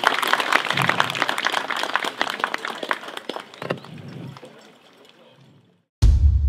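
Audience applauding, the clapping fading away over the last few seconds. Loud music cuts in abruptly near the end.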